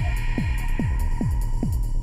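Electronic background music with a steady beat: a falling-pitch kick drum sounds about two and a half times a second over a synth bed.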